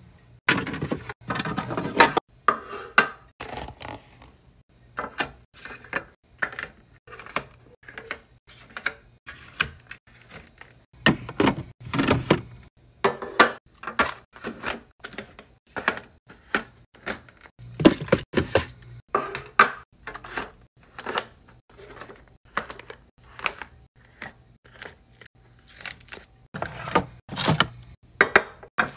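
A mini fridge being stocked by hand: a steady run of taps, clacks and knocks as plastic yogurt cups and clear plastic organizer bins are set down and slid into place, some coming in quick clusters.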